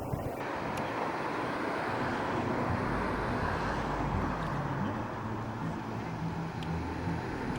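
Road traffic noise: a steady rush of passing vehicles, with an engine's low hum standing out through the middle.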